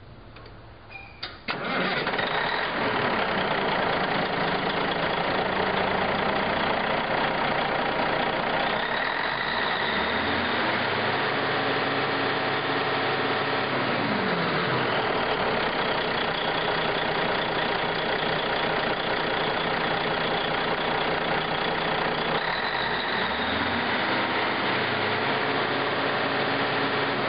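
Caterpillar 980C wheel loader's diesel engine starting about a second and a half in, after a few clicks, then settling into a steady run. Twice it revs up for a few seconds and falls back to idle.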